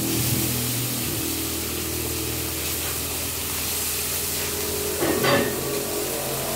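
Chicken in soy sauce sizzling and simmering in a wok, a steady hiss, with one short knock about five seconds in.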